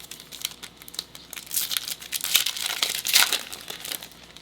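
Crinkling and tearing of a trading card pack's wrapper being opened by hand, a dense crackle that grows loudest in the middle.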